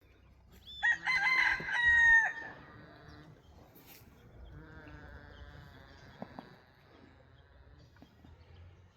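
A rooster crows once, loudly, about a second in: a held call that drops in pitch at the end. Underneath, fainter and lower, a goat snores.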